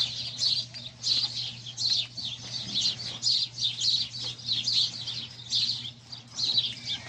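Small birds chirping rapidly and without pause, about three short high chirps a second, over a steady low hum.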